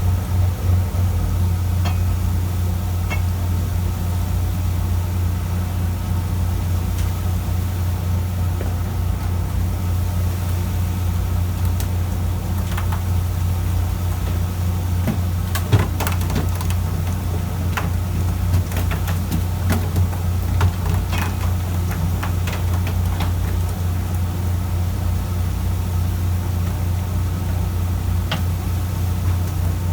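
Fishing boat's engine running with a steady low drone, with a few short knocks and clatters about halfway through and one more near the end.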